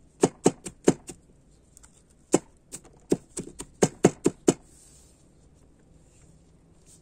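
A cleaver chopping red onion on a wooden cutting board: about a dozen sharp, uneven chops, which stop about four and a half seconds in.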